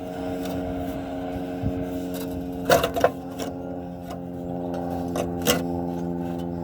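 Kobalt power drill's motor running steadily, with sharp metal clinks about halfway through, the loudest two close together.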